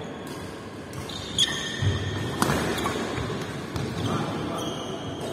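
Doubles badminton rally on an indoor court: sharp racket hits on the shuttlecock, two about a second apart near the middle. Short high squeaks of shoes on the court floor and a few low footfall thuds run alongside the hits.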